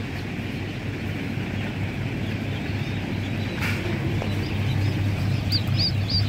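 Newly hatched ducklings peeping, a few short high cheeps that come thicker near the end, over a steady machine hum.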